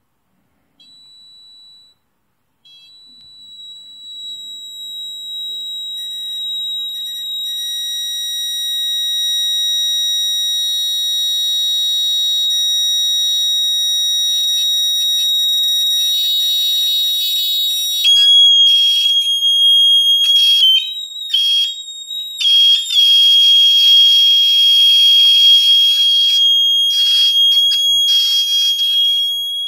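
LZQ-2715 industrial continuous-sound electronic buzzer sounding one steady high-pitched tone. It starts faint and grows louder as its DC supply voltage is turned up toward about 12 V. About 18 seconds in the tone drops slightly in pitch and turns louder and harsher, then cuts out briefly a few times before running steadily again.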